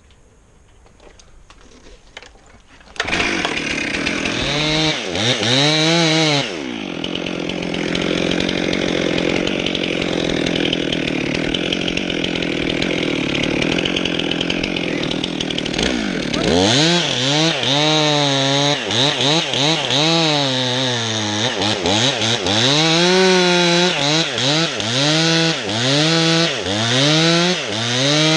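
Chainsaw starting up suddenly about three seconds in and revving up and down. It is then held at a steady high speed for about nine seconds, and after that revved again and again in short blips.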